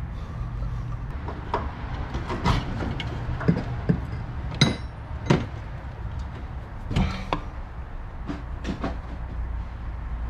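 Irregular metallic taps and clanks: a ball-peen hammer striking a punch and tools knocking on metal while the truck's power steering pump is being removed. The pump has seized. A steady low hum runs underneath.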